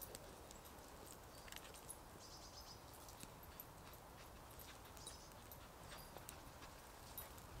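Near silence, with scattered faint clicks and crackles and a brief soft hiss or two from a small piece of tinder burning in the hand, struck alight to start a fire.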